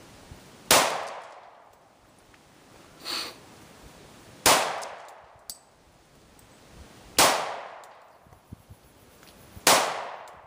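Four shots from a Glock 22 .40 S&W pistol, about two and a half to three seconds apart, each trailing off over about a second. A fainter short ring comes about three seconds in, between the first and second shots.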